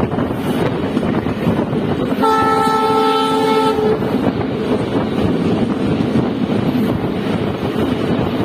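Passenger train running at speed, heard from a coach window as a steady rush of wheel-on-rail and wind noise. A little over two seconds in, the train's WDP4 diesel locomotive sounds one steady horn blast lasting about a second and a half.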